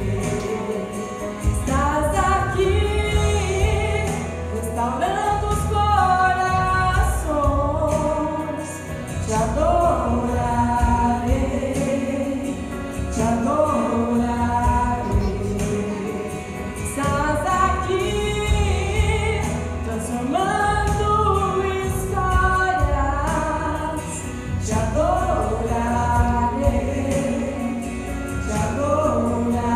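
A mixed choir of men and women singing a Christian song in parts, over steady low instrumental accompaniment.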